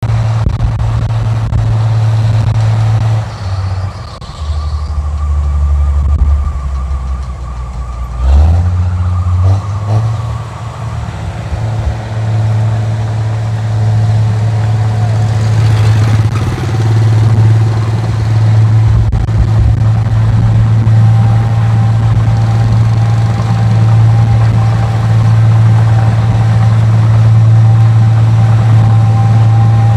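Rice combine harvester's engine running with a strong steady drone and a thin whine over it. The note shifts a few times in the first ten seconds, with a sharp knock about eight seconds in, then holds steady.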